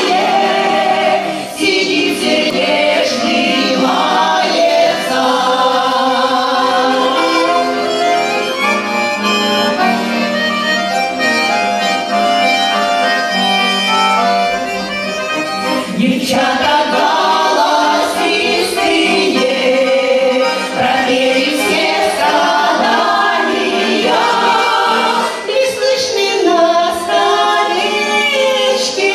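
A vocal ensemble singing a song with accordion accompaniment.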